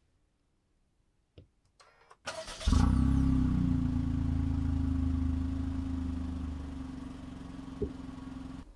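Perodua Ativa's 1.0-litre three-cylinder turbo petrol engine started by push button: after a click, the starter cranks briefly, the engine catches with a flare in revs about two and a half seconds in, then settles into a steady idle that slowly quietens.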